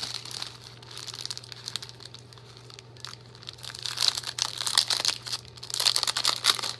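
Clear plastic bag crinkling as hands handle it and work paper craft pieces out of it. The crinkling is light at first and grows thicker and louder in the last few seconds.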